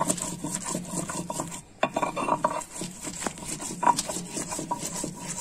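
Stone muller (batta) scraping and knocking on a stone grinding slab (sil) as red chillies are ground with a little water into chutney paste: a run of irregular rubbing strokes with sharp stone-on-stone clicks, the loudest click about two seconds in.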